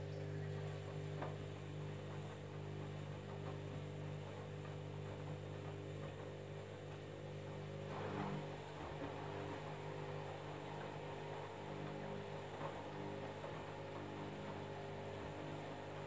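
Candy front-loading washing machine running mid-cycle with a steady electric motor hum, plus a faint knock about eight seconds in.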